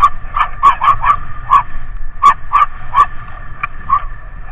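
A black dog barking in short, sharp barks, about ten in four seconds, as it runs at a passing bicycle, the barks thinning out near the end.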